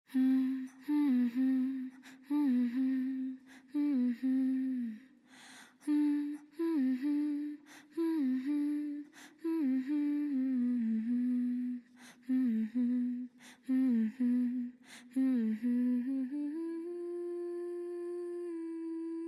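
A solo voice humming a slow wordless melody, unaccompanied, in short phrases with a quick breath between each. Near the end it settles on one long held note.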